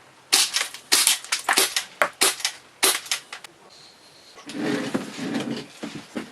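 Airsoft pistols firing a quick string of sharp cracks, with BBs smacking into plastic compact film cameras, for about three seconds. This is followed by about a second of softer scuffing noise.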